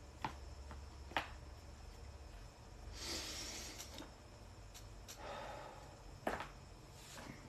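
Neck joints cracking: three sharp pops, the first just after the start, the second about a second later, the third near the end, with a few fainter clicks. Breathy hissing exhales fall between them.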